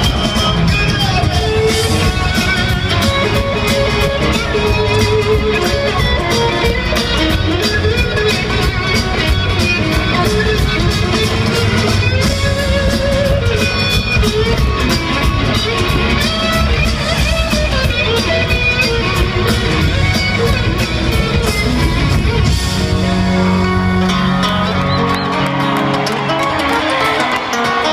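Live band playing loud guitar-led music, heard from the crowd. Near the end the heavy low end drops away, leaving guitar and a held low note.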